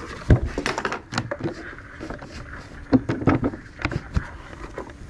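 Footsteps and scattered knocks on a wooden pier deck, with a heavier thump about a third of a second in and a quick cluster of knocks around three seconds in.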